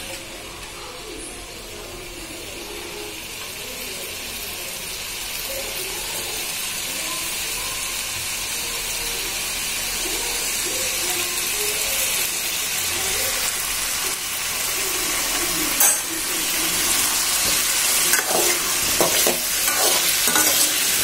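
Diced potatoes sizzling in hot oil in a steel kadai, the sizzle growing steadily louder. In the last few seconds a spoon stirs them, scraping and clinking against the pan.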